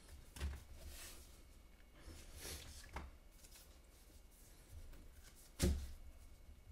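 Foil trading-card packs rustling and being squared up into a stack by hand, with scattered light taps and clicks. A dull thump about five and a half seconds in is the loudest sound.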